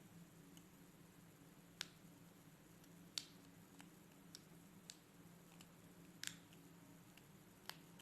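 Faint, irregular small metallic clicks of a steep hook pick lifting and setting pin tumblers in an American Lock Series 1105 padlock under top-of-keyway tension, about eight clicks spread over several seconds, with a low steady hum beneath.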